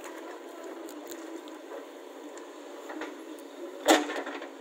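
Diesel engines of a JCB 3DX backhoe loader and a tractor running steadily while the loader works, with one loud knock about four seconds in.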